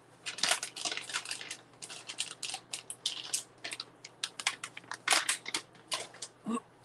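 Plastic bag of shredded cheese crinkling and crackling as it is handled and put away, in irregular bursts that stop just before the end.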